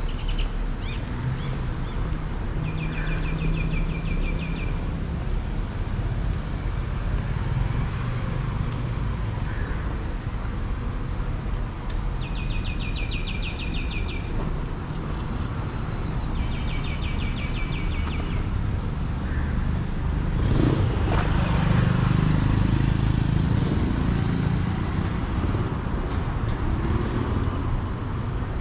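Street ambience with a steady low traffic rumble, and a bird's rapid trill heard three times. About two-thirds of the way through, a vehicle's engine grows louder.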